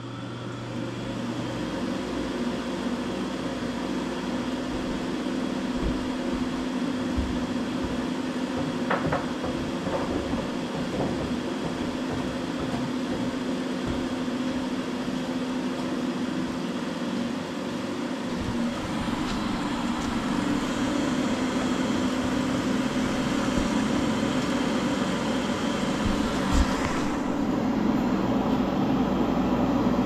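Bryant Plus 90 gas furnace starting a heating cycle: the draft inducer motor spins up and runs with a steady hum that slowly grows louder, with a few sharp clicks along the way. Near the end there is another click and the sound changes as the burners light.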